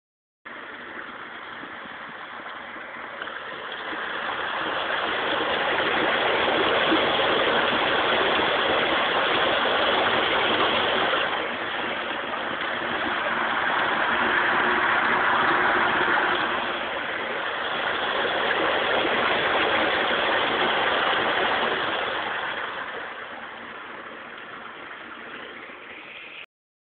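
Water rushing down into a small sinkhole hole in a waterlogged meadow: a steady, noisy rush that swells louder in the middle, then eases off and cuts off suddenly near the end.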